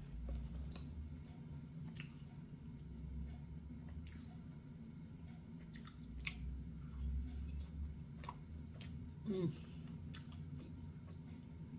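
Close-up chewing of a pepperoni pizza slice, with bites and scattered wet mouth clicks. A short hum about nine seconds in.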